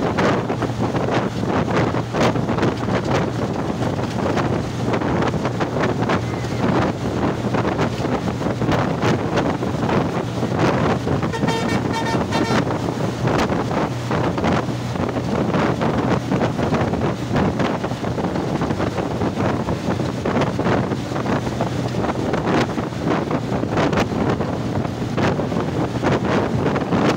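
Wind buffeting the microphone on a bus travelling at speed, over a steady low hum of the bus's engine and road noise. About halfway through, a vehicle horn sounds once for about a second and a half.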